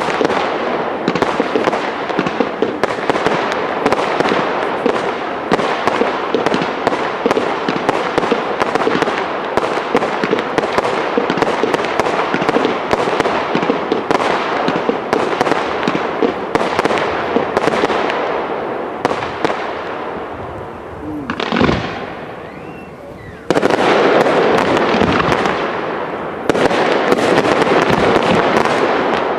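Professional aerial fireworks display: a dense, continuous crackle of rapid pops from bursting shells. About three-quarters of the way through it thins out with a single boom, then the crackling comes back suddenly and louder, rising again near the end.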